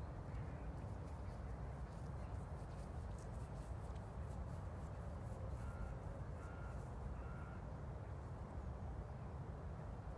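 A steady low outdoor rumble, with a bird giving three short calls about halfway through, each less than a second after the last.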